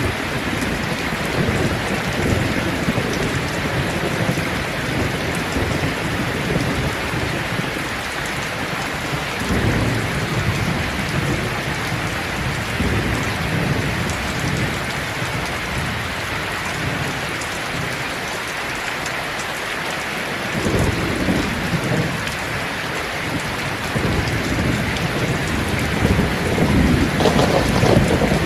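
Steady rain falling on leaves, with low rumbles of thunder rolling in about a third of the way through, again past the two-thirds mark, and building near the end.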